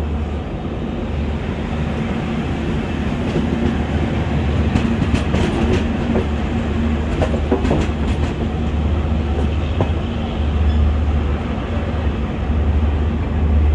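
An express train's passenger coach arriving at a station, heard from the coach itself. There is a steady low rumble of the running gear, and a cluster of sharp wheel clicks over rail joints midway through.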